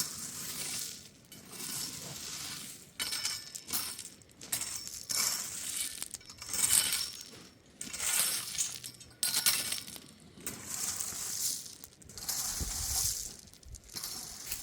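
Repeated crunching, scraping strokes of loose stone or gravel being worked, roughly one a second. A low rumble comes in near the end.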